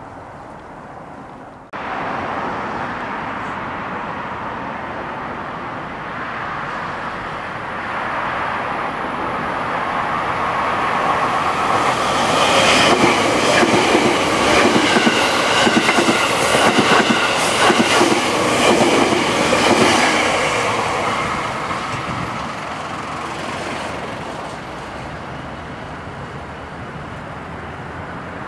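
JR Kyushu 787 series electric limited express train passing close by at speed. It swells over about ten seconds to a loud, rapid clickety-clack of wheels over rail joints as the cars go past, then fades away.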